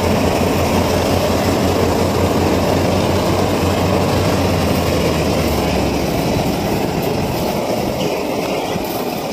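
A combine harvester and a Massey Ferguson 245 DI tractor running close by, a loud steady mechanical din with a low engine hum. The hum weakens about six seconds in and the noise eases slightly toward the end.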